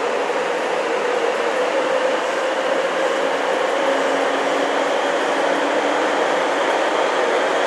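Nagoya Municipal Subway Tsurumai Line 3000-series train running at steady speed, heard from inside the car: a continuous rumble of wheels and running gear with a faint steady tone in it.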